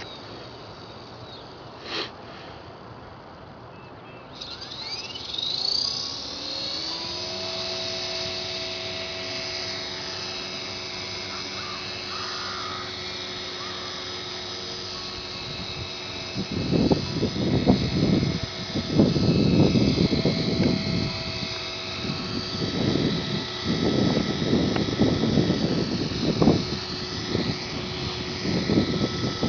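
HK450 electric RC helicopter spooling up with a rising whine about four seconds in, then holding a steady whine from motor and rotor as it hovers. From about halfway, gusts of wind buffet the microphone in loud irregular rumbles.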